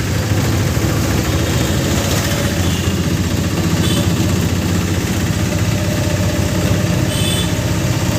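Auto-rickshaw engine running steadily, heard from inside the open passenger cabin while riding through town traffic, a constant low drone.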